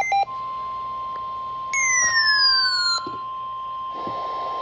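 Emergency alert warning tone: one steady, unbroken high beep, like the tone that comes before a broadcast weather warning. A second electronic tone slides downward for about a second near the middle. A click comes near the end.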